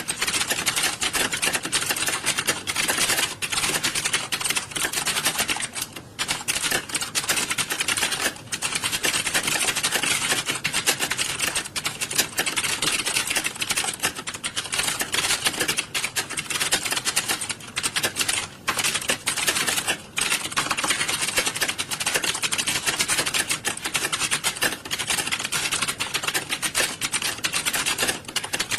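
Many computer keyboards being typed on at once, a dense, continuous clatter of key clicks with only brief lulls, as in a hall full of candidates sitting a typing test.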